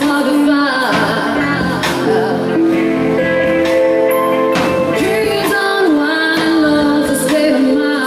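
Live rock band playing: a woman sings long held notes over electric guitar and a drum kit, with cymbal crashes about every second or two.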